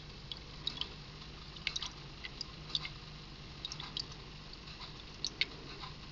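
Water dripping from a small plastic tub into a tank: scattered small high plinks, a couple a second at uneven intervals, over a faint steady low hum.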